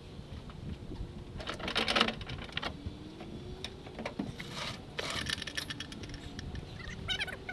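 Metal clicks and clinks of ratchet tie-down straps and their hooks being worked loose from a stripped quad frame in a pickup bed, in scattered clusters, the loudest about two seconds in.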